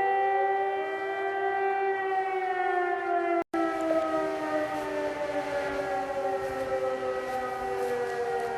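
Outdoor warning siren sounding the fire alarm signal (Feueralarm). It holds a steady, loud tone, then from about two seconds in begins slowly winding down in pitch while still sounding. There is a split-second dropout about three and a half seconds in.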